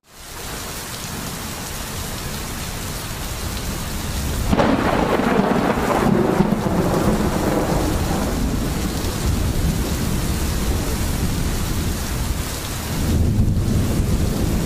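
Thunderstorm: steady rain, with a roll of thunder that breaks in suddenly about four seconds in and rumbles on for several seconds, and another rumble near the end.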